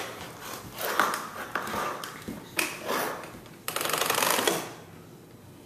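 Hard clattering knocks of a baby's plastic push walker and a measuring cup on a tile floor: a few separate knocks, then about a second of scraping rattle a little past the middle.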